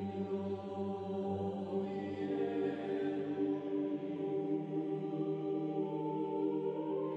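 Slow ambient background music of long, held choir-like tones that change chord every few seconds.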